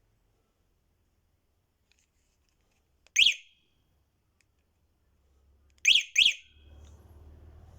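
The E-Odin 2.0's electronic beeper chirping: one short high beep about three seconds in, then two quick beeps close together a few seconds later. A faint low hum follows near the end.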